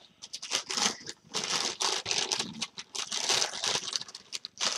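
Plastic packaging crinkling and rustling in irregular bursts as a replacement laptop LCD panel is unwrapped from its wrap.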